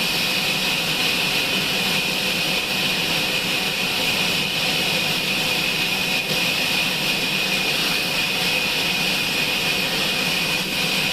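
Sawmill saw machine running steadily: a loud, constant high whine over an even mechanical roar, with no pauses or changes.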